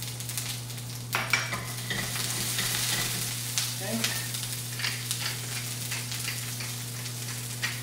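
Cherry tomatoes sizzling and crackling cut-side down in hot oil in a frying pan as they blister and give off their moisture, over a steady low hum.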